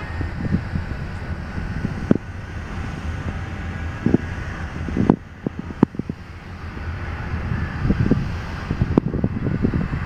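AGE-30 diesel-electric locomotive idling at a standstill with a steady low hum. Wind buffets the microphone and there are scattered knocks from handling, most around five to six seconds in.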